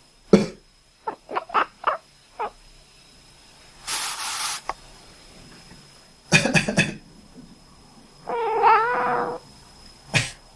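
A person coughs several times. Between the coughs a cat answers with short, quack-like chirps. Near the end there is a longer, wavering call.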